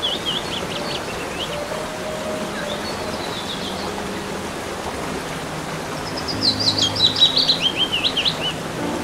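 Waterfall cascades rushing steadily, with a songbird singing quick runs of high notes. The loudest song phrase comes about six seconds in and falls in pitch over about two seconds.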